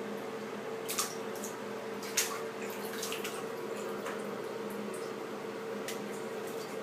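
Bathwater splashing and sloshing as a young bonnet macaque swims through it, with two sharper splashes about one and two seconds in. A steady low hum runs underneath.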